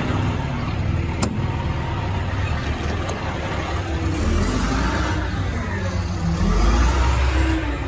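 International DT466 7.6-litre diesel engine running, its note dipping and rising a few seconds in. A sharp click comes about a second in and a fainter one a couple of seconds later, as a utility-body compartment door is unlatched.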